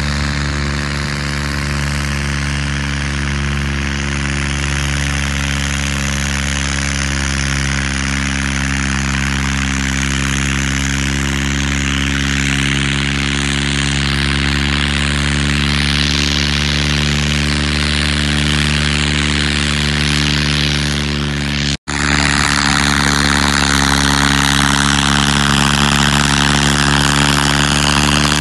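Diesel tractor engine running hard at steady revs, pulling a disc harrow under heavy load. The sound briefly drops out about three-quarters of the way through, then the engine carries on slightly louder.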